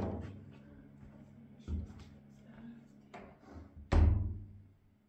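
Hollow thumps and knocks as a cat moves about the bathroom sink and bathtub: a loud thump at the start, a lighter knock about two seconds in, a few soft taps, then another loud thump with a short low boom about four seconds in.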